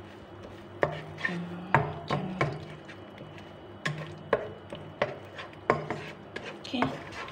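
A spatula scraping and knocking against a non-stick frying pan as egg is stirred and broken up in fried chilli paste. The knocks come irregularly, a dozen or so over the few seconds.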